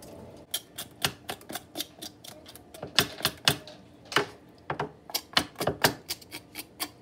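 Knife scraping scales off a whole parrotfish in short strokes: a quick, irregular run of sharp clicks, about four a second, starting about half a second in.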